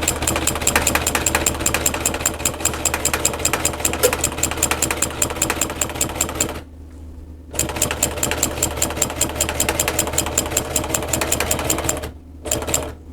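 Belt-driven sewing machine stitching a seat cover: a fast, even run of needle strokes over a steady motor hum. It stops for about a second partway through, runs again, then stops near the end with one short burst after.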